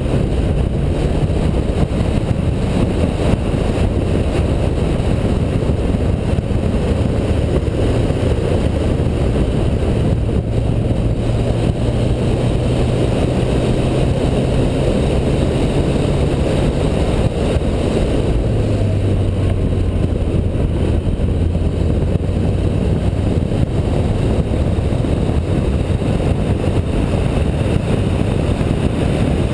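Car engine pulling at speed on a race track, with heavy wind and tyre noise. The engine note climbs slowly, then drops to a lower pitch about two-thirds of the way through.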